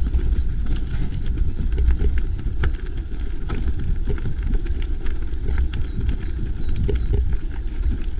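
Mountain bike rattling and clattering over a steep, rough, rocky descent, a heavy low rumble under many small knocks.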